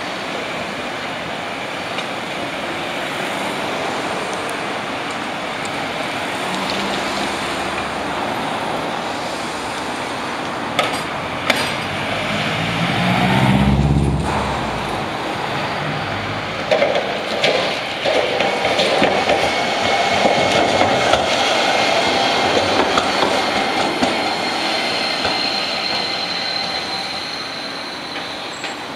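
Street tramway sounds: trams running on street-laid rails among road traffic, with a few sharp clicks about a third of the way in and a deep passing rumble around the middle. In the second half a Toyohashi Railway T1000 low-floor tram comes in to the stop, with a thin, steady high whine near the end.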